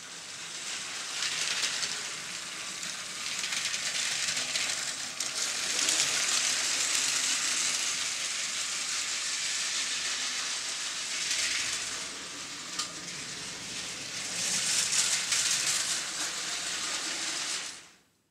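LEGO train running on plastic LEGO track, its wheels and motor making a steady rattling rush that swells and eases several times as it goes round, then cuts off suddenly near the end.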